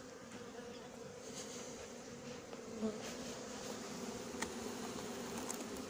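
Honeybees flying around an opened colony, a steady buzzing hum.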